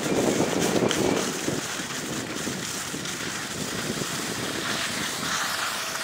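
Sliding run over groomed, packed snow: edges scraping and hissing on the snow, with wind buffeting the microphone. Louder in the first second and a half, then easing to a softer steady scrape.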